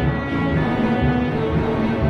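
Slow instrumental background music of deep, held chords with no beat; the chord shifts about half a second in.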